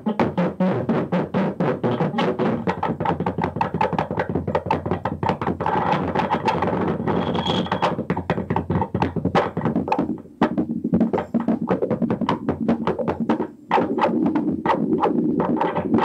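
Lo-fi experimental noise music played from a cassette: a dense stream of rapid, irregular clicks and stutters over a droning hum, cutting out briefly twice in the second half.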